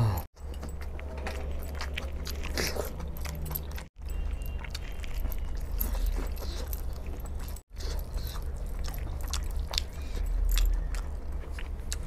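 Close-miked eating by hand: wet chewing and smacking of rice and chicken curry, fingers squishing and mixing rice on a banana leaf, and metal rings and chains clinking. A steady low hum runs underneath, and the sound drops out briefly three times.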